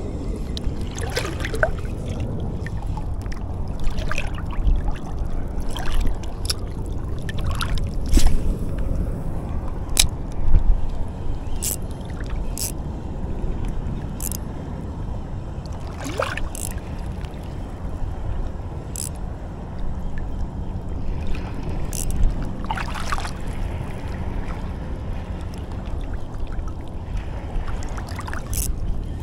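Shallow seawater sloshing and lapping, under a steady low rumble. Short sharp clicks and small splashes come every second or two.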